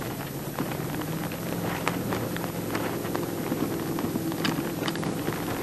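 Ram 2500 pickup's engine running at a steady pitch as the truck drives across desert sand, with scattered clicks and knocks throughout.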